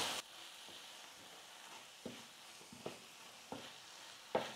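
Wooden spatula stirring onion-tomato masala in a kadai: a faint sizzle with a few short scrapes and knocks against the pan, the loudest near the end.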